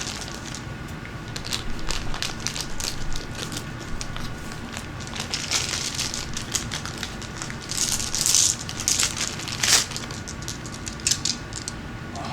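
A plastic bag crinkling and rustling as tumbled gemstones (amethyst and lapis) are handled in it, with many small clicks of the stones knocking together. The rustling is louder about eight and ten seconds in.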